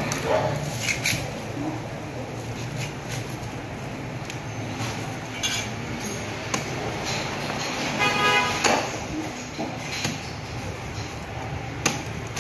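Fresh corn husks being pulled and torn off the cob, then a meat cleaver chopping through ears of corn on a concrete floor in a series of sharp knocks. A brief horn-like toot sounds about eight seconds in.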